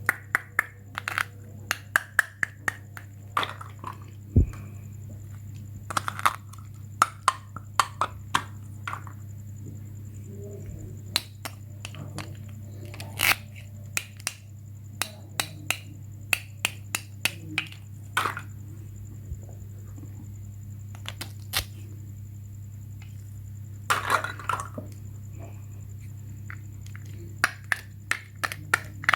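Hard toy pieces clicking and knocking against each other and a surface, in irregular clusters of sharp taps, over a steady low electrical hum.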